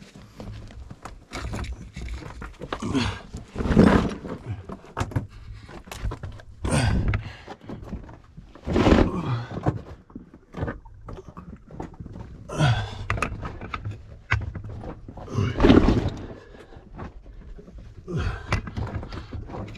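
A person squirming backwards through a tight lava tube: body and gear scraping and knocking against the cave rock, with heavy breaths and grunts of effort every few seconds.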